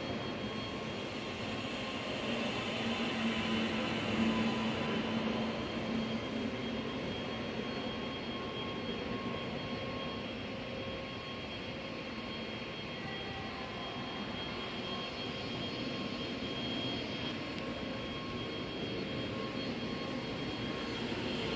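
Steady rushing background noise of a large hall, with faint steady hums running through it.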